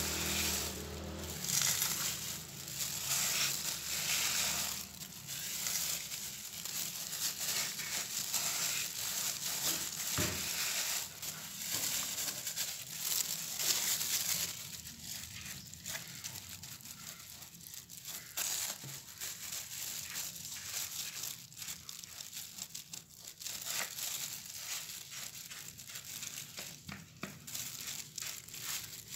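Plastic-gloved hand scraping dry husk mulch off the soil of a potted plant, followed by a brush scrubbing the soil surface: irregular crinkling, rustling and scratching.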